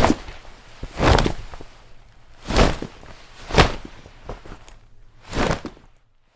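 A run of five short, noisy swishes and knocks, roughly a second apart, made with household objects as sound effects. They stop near the end.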